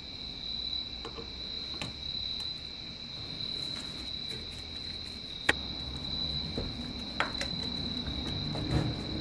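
A steady high-pitched tone runs throughout, with a few sharp clicks of metal tools being set down and handled on a wooden workbench; the loudest click comes about halfway through.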